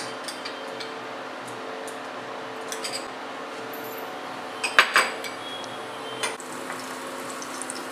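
Utensils clinking against a non-stick kadai: a few light clinks, then a louder cluster of two or three strikes about five seconds in. Under them runs the steady hum of an induction cooktop heating the pan.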